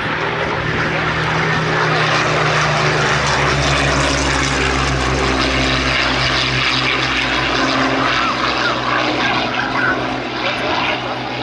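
Vintage piston-engined propeller aircraft flying past: a steady engine drone that is loudest a few seconds in and then eases slightly.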